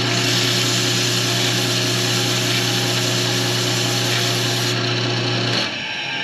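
Wood lathe running with a steady motor hum while sandpaper is held against the spinning workpiece, making a loud hiss. The sanding hiss stops about four and a half seconds in, and the motor hum cuts out about a second later.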